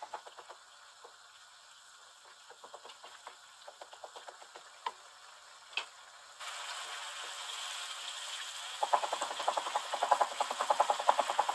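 Chopped onion, tomato and garlic sizzling in oil and water in a wok, faint bubbling ticks at first. About six seconds in the sizzle turns into a steady hiss, and from about nine seconds it becomes a denser, louder crackle as the mixture is stirred with a wooden spatula.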